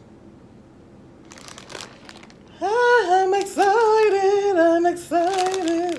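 A woman singing a few held notes, starting about halfway through. Before it, plastic crinkles briefly.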